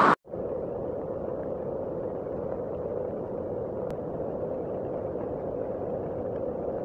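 Heavy tropical rain falling steadily on dense forest foliage: an even, muffled rush that begins after a brief silent break at the very start.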